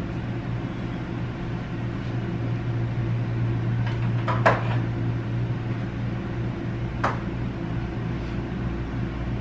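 Seasoning containers being taken down from a kitchen cabinet: a couple of quick knocks about four and a half seconds in and another near seven seconds, over a steady low hum.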